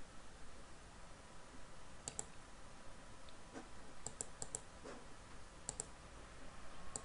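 Computer mouse buttons clicking faintly over quiet room hiss: a quick double click about two seconds in, a run of four clicks around four seconds in, and another double click near six seconds.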